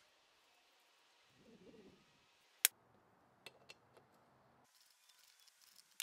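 A sharp metallic clink as a steel socket on a ratchet extension goes onto a crank case bolt, followed by two lighter clicks. A short, soft, low cooing call comes just before it.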